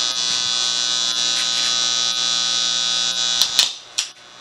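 DIY amplifier putting out a loud, steady ground-loop buzz through its speaker. About three and a half seconds in, a few crackling clicks come and the buzz cuts out abruptly, with one more click just after.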